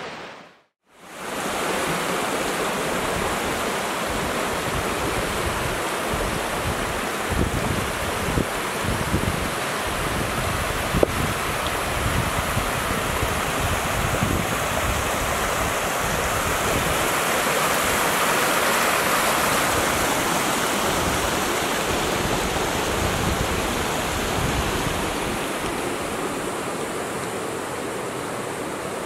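Rocky woodland brook rushing steadily over stones and small cascades. The sound cuts in after a brief break at the very start. A few low bumps come through in the middle, and there is one sharp click about eleven seconds in.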